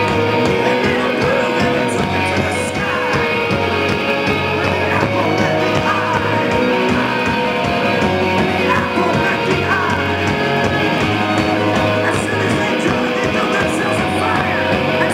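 A rock band playing live, electric guitars to the fore, heard loud through a small Flip Video camcorder's built-in microphone.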